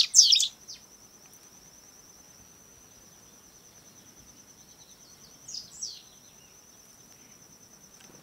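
Natural ambience of birds and insects: a few quick downward-sweeping bird chirps right at the start and again about five and a half seconds in, over a steady, high, pulsing insect trill.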